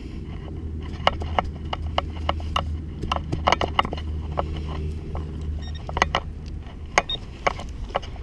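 Irregular clicks, crackles and scrapes of soil and grass being pushed back into a freshly dug hole by hand, over a steady low rumble.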